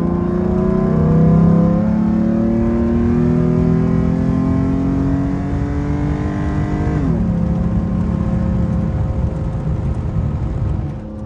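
Ford F-150's naturally aspirated V6 accelerating, its pitch climbing steadily for about seven seconds. The pitch then drops suddenly as the six-speed automatic, shifted in manual mode, takes the next gear. After that the engine holds a steady, lower note.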